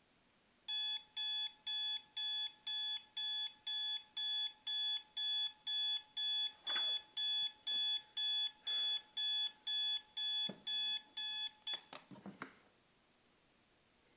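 Digital bedside alarm clock going off, beeping in a steady, high-pitched run of about two short beeps a second. The beeping stops near the end amid a few quick taps.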